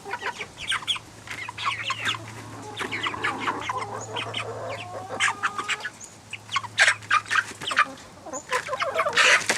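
Chickens clucking and cheeping in short calls, one after another; the flock includes six-week-old Cornish Cross meat birds. A few longer, steady calls come around the middle.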